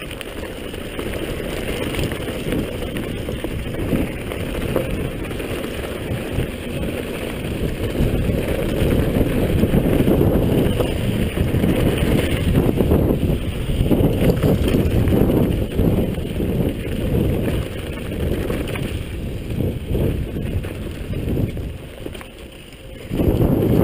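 A downhill mountain bike rolling fast over a dirt trail: tyre rumble and the frame and parts rattling over bumps, under wind buffeting the microphone. The noise swells and falls with speed and eases briefly near the end.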